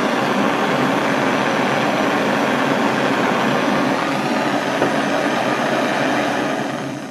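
Propylene torch burning with a steady rushing noise while roasting a marshmallow Peep, fading out near the end.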